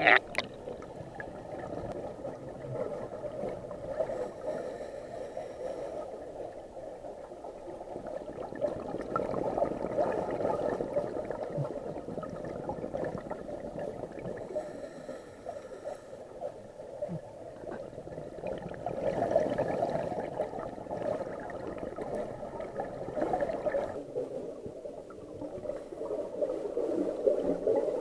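Muffled underwater bubbling and water noise, recorded through a waterproof camera housing, crackling steadily and swelling louder twice for a few seconds, with a sharp click right at the start.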